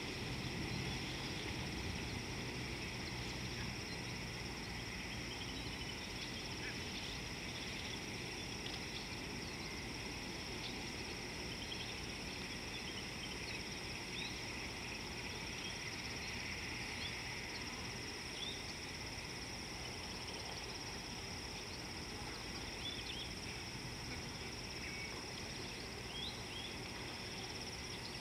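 Steady high-pitched insect chorus with many short chirps scattered through it, over a low background noise.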